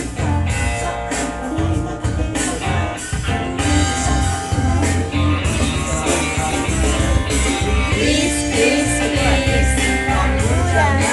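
Music playing, with a young child's voice singing along over it, mostly in the later seconds.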